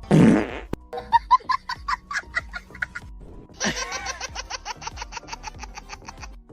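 A short loud noisy burst, then two runs of high-pitched laughter: about five quick 'ha's a second, then a faster run of about nine a second. Faint background music runs underneath.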